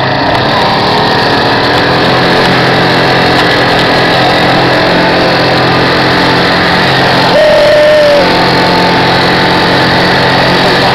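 Quad bike (ATV) engine running steadily under way on a dirt track, heard from the rider's seat. About seven seconds in, a short higher-pitched sound rises briefly above the engine for under a second.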